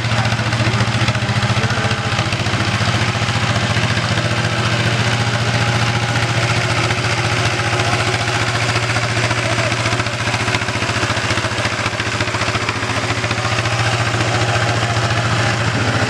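Single-cylinder diesel engine of a Tobata walking tractor running steadily at a constant speed, with an even, rapid chugging.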